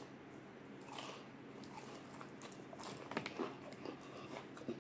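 Faint chewing of fried chicken close to the microphone, with a few short crunches.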